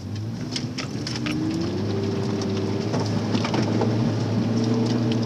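An off-road 4x4's engine revving, its pitch climbing about a second in and then held high, with scattered knocks and clatter over it.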